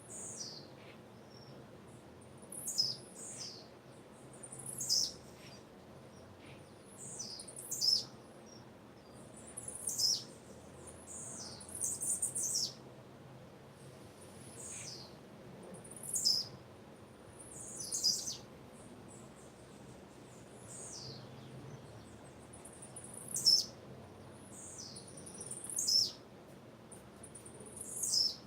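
Female blue-black grassquit (tiziu) calling: short, high chirps that sweep downward, about one every two seconds, sometimes in pairs.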